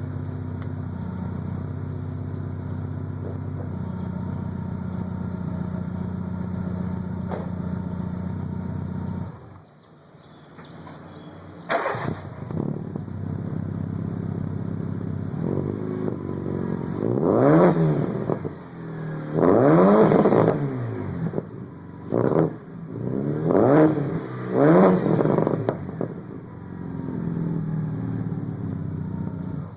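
Peugeot 206's 1.6-litre 16-valve four-cylinder engine, breathing through an aftermarket 4-into-1 header, 2-inch pipe and 60 cm muffler, idling with a loud, low rumble. After a brief lull it is blipped four or five times in the second half, each rev rising and falling, then settles back to idle.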